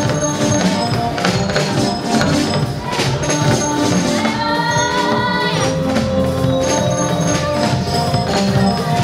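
Live gospel praise music: a choir singing with a band of drum kit and keyboard, over a steady percussion beat.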